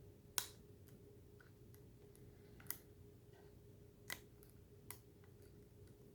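Faint, irregular metallic clicks of a lock pick working the pins of a five-pin Master padlock while tension is held on the plug: four sharper clicks stand out, the first and loudest about half a second in.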